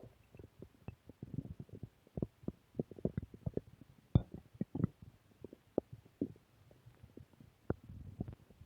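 Human stomach growling: irregular gurgles and quick bubbly pops, with one sharper, louder pop about four seconds in and a denser low rumble starting near the end.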